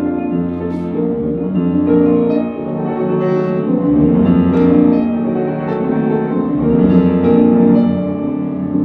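Instrumental music led by piano, played back through an FM Acoustics hi-fi system, with held notes overlapping and changing every half second or so.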